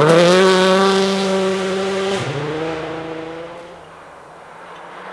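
Rally car engine at high revs holding a steady note as the car drives away on a snow stage. About two seconds in, the pitch drops sharply and settles lower. The note then fades into the distance, and a faint engine note grows again near the end.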